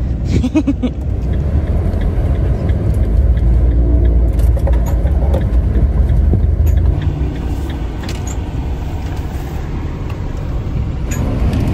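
A van driving, heard from inside the cab: a steady low rumble of engine and road noise, with a few faint rattles and clicks.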